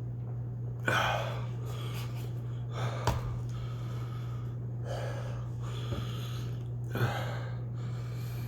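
A man breathing hard through a chili burn from habanero hot sauce and powder: four sharp, noisy breaths about two seconds apart, over a steady low hum.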